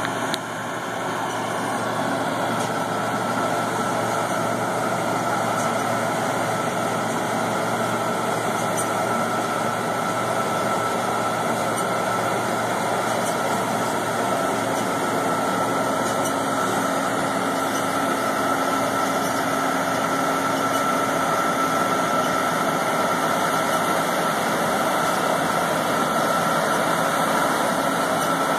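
John Deere 9660 STS combine harvester running steadily under load while harvesting wheat, a constant engine and machinery drone with a faint steady whine.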